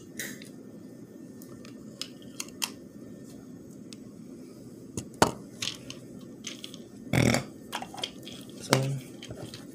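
Small handling noises, scattered clicks, crinkles and a couple of heavier knocks, over a steady low hum.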